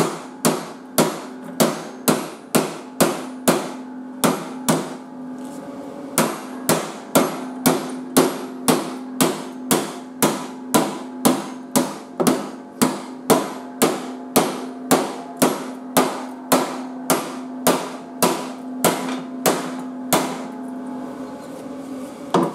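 Steel hammer blows on a sheet-steel patch plate welded to a mower deck, bending it over the deck's curved front edge: a steady run of sharp metallic strikes, roughly two and a half a second, with a short break about five seconds in, stopping a couple of seconds before the end.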